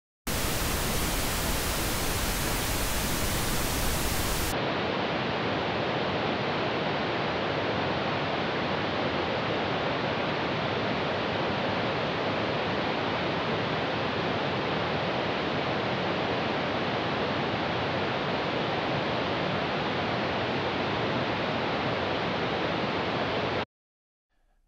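Pink noise from Logic Pro's Test Oscillator, a steady hiss. About four and a half seconds in, the Channel EQ is switched on and the noise turns duller and thinner: its top end and deepest bass are cut away by the EQ's filters, with a boost in the mid-range. The noise stops abruptly near the end.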